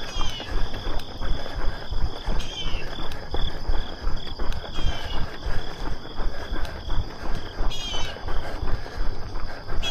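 Running footsteps at about three strides a second, with the handheld camera jostling in time. Insects trill steadily in the background, and short falling chirps come every two or three seconds.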